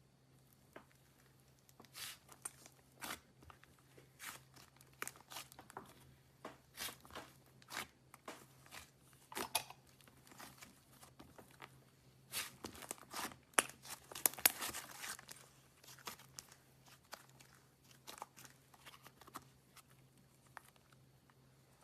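Clay slime being squished and pulled by hand, giving a string of short sticky clicks and pops, busiest in a run around the middle.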